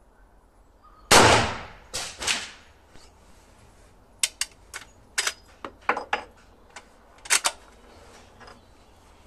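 A shot from a Winchester Model 1892 lever-action rifle in .44-40 about a second in, with more loud noise close after it. Then a run of sharp metallic clicks and clacks as the rifle's action is handled.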